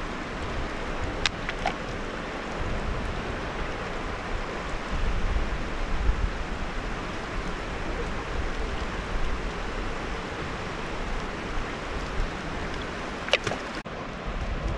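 River water rushing steadily, with a few sharp clicks about a second in and again near the end.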